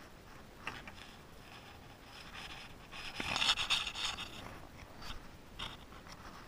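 Faint rustling and scraping, with a few light clicks and a louder stretch of hiss for about a second around three and a half seconds in.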